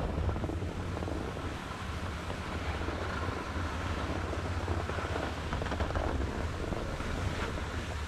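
Wind buffeting an action camera's microphone while skiing, a steady low rumble, over the hiss of skis sliding on groomed snow.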